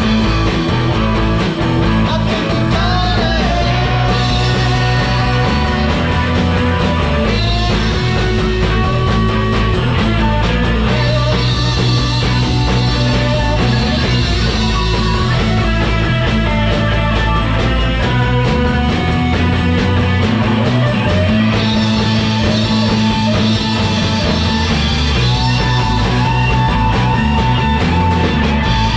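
Live rock band playing an instrumental passage without vocals, guitar to the fore over bass and drums.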